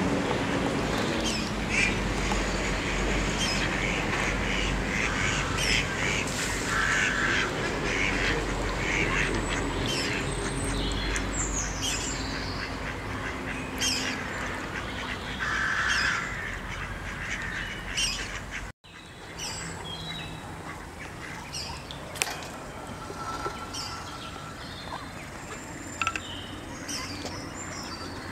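Ducks quacking now and then on a pond, over a steady low rumble. The sound breaks off for a moment about two-thirds through, and after that the rumble has largely dropped away while the quacks go on.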